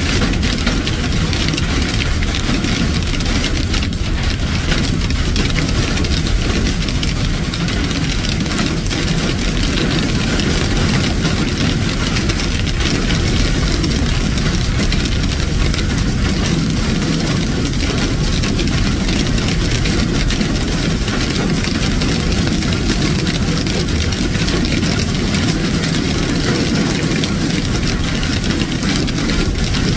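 Hail pelting down through tree leaves and onto the ground: a dense, steady roar of countless small impacts.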